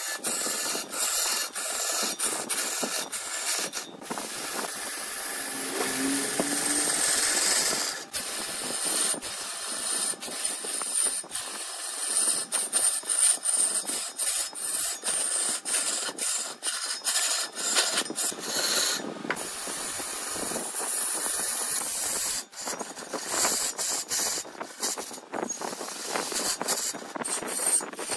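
A hand-held turning tool cutting wood spinning on a large lathe: a steady scraping hiss broken by frequent sharp clicks and ticks.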